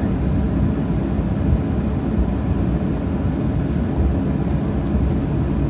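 Steady low rumble of a Boeing 737-800's CFM56 engines at idle, heard from inside the passenger cabin while the jet is on the ground before takeoff.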